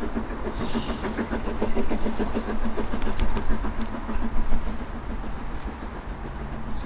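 A train running past with a fast, even rhythmic beat that weakens after about four seconds, with a few light clicks about three seconds in.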